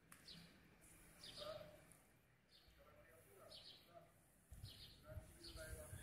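Faint outdoor bird chirps, short falling notes repeating about once a second, against near-quiet street ambience. A low rumble joins near the end.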